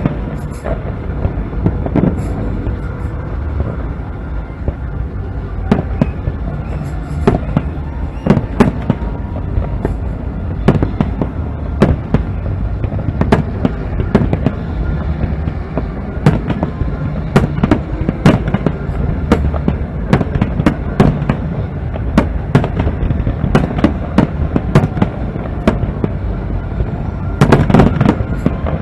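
Aerial fireworks going off in irregular bangs and crackles, with a rapid volley of bursts near the end.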